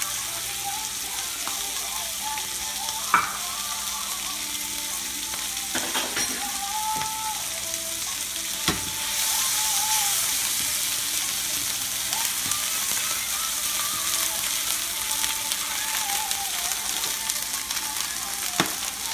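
Flank steak sizzling in a hot skillet with pesto, a steady frying hiss that swells louder about nine seconds in as a steak is turned over with tongs. A few sharp clicks of the metal tongs against the pan.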